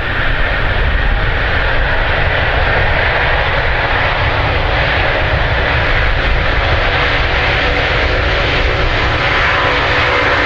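A loud, steady engine drone with a faint steady whine over it.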